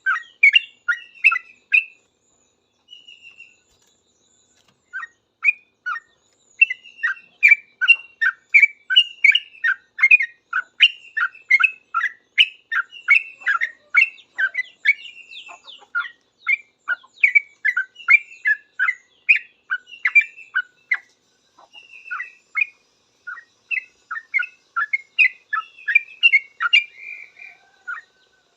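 Yellow-vented bulbul (trucukan) singing fast, chattering strings of short chirping notes. It breaks off about two seconds in for a few seconds, then chirps almost without pause.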